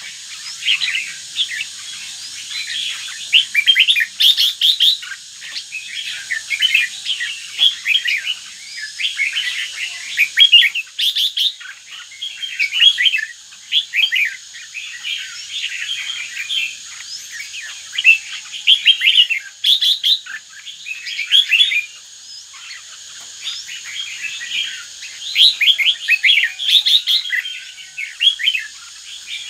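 Caged red-whiskered bulbul, a northern-type bird, singing: a rapid run of short chirping song phrases one after another, with a brief pause a little past two-thirds through.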